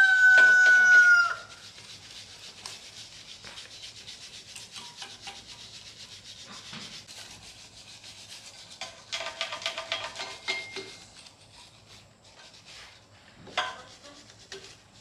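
A rooster crowing loudly, ending about a second in. Then quick, even rubbing strokes like sanding or scrubbing continue, with a second, fainter crow later on.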